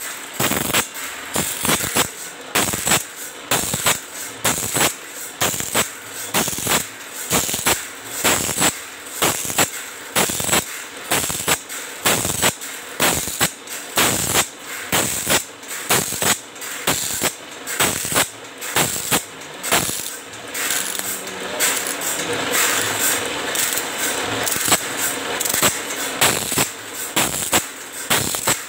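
Automatic bandsaw-blade sharpening machine running: the grinding wheel grinds tooth after tooth with a harsh grinding hiss while the feed mechanism clacks the blade forward in a quick, regular beat. About two-thirds of the way through, the clacking briefly gives way to a steadier grinding noise.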